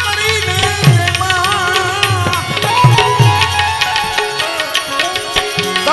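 Indian devotional folk music: harmonium with tabla, whose deep bass-drum strokes bend down in pitch, and small hand cymbals (manjira) clashing along.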